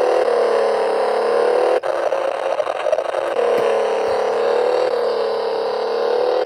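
Toy model engine's recorded engine sound effect, a steady engine drone that dips and rises slightly in pitch, breaking off for an instant about two seconds in.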